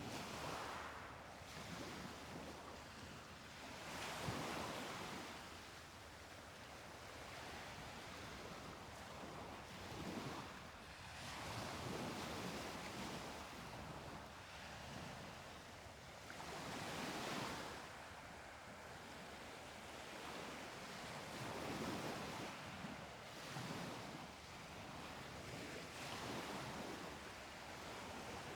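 Waves breaking and washing up a beach: a steady hiss of surf that swells and falls back every few seconds as each wave comes in.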